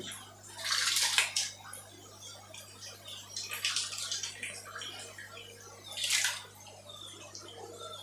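Water splashing and dripping as a handful of small yellow parrot fish is lifted out of a net-lined tank and lowered back in. The splashing comes in three surges, about a second in, near the middle, and about six seconds in, over a faint steady hum.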